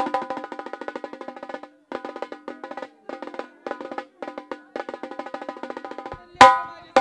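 Dholki hand drum played in fast, rapid rolls, broken by a few short pauses, with one loud accented stroke near the end.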